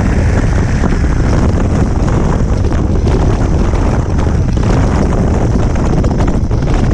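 Massey Ferguson 8130's straight-piped Perkins 1006.6 six-cylinder turbo diesel running steadily as the tractor drives, heavily buffeted by wind on the microphone.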